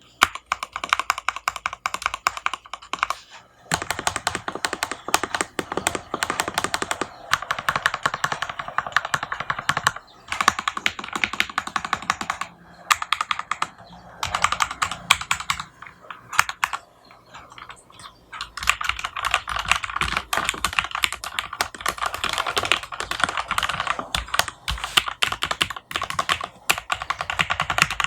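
Typing on an Alice-layout ergonomic mechanical keyboard with lubed Gateron Yellow KS-3 linear switches: fast runs of key clacks broken by several short pauses and a longer lull past the middle.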